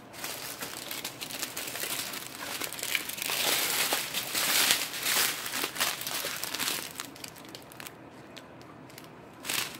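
Small plastic bags of diamond painting drills crinkling and rustling as they are handled and sorted. The rustle is dense for about seven seconds, dies down, then comes back in one short loud crinkle near the end.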